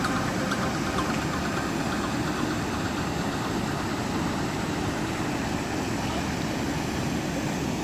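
River water rushing, a steady low rumble.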